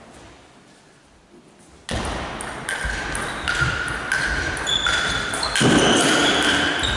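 Table tennis rally: the celluloid ball clicking off bats and table in quick succession, each hit ringing briefly. The hits begin about two seconds in.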